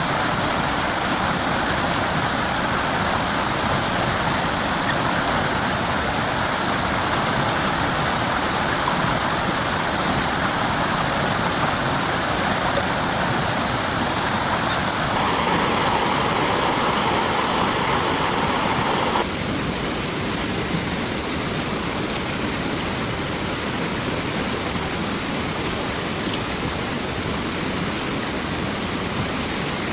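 Heavy rain falling steadily, a dense hiss with no pauses; its tone changes abruptly for about four seconds in the middle, then settles back.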